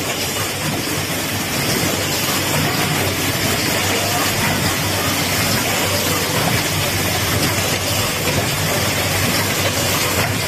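Automatic UV silkscreen printing machine running, a steady mechanical clatter and whir from its bottle conveyor and printing stations over a low hum.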